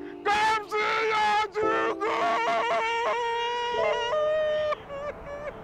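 A man wailing and crying out a name in anguish, in a string of long, drawn-out, wavering cries.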